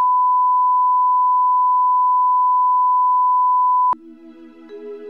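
Steady 1 kHz line-up test tone, the reference tone that goes with colour bars, cutting off sharply about four seconds in. Quieter background music with sustained notes begins at once.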